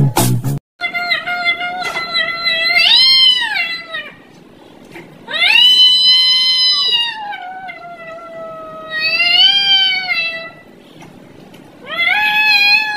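A grey cat yowling in long, drawn-out meows that slide up and down in pitch, the loudest about five seconds in. A snatch of music cuts off in the first second.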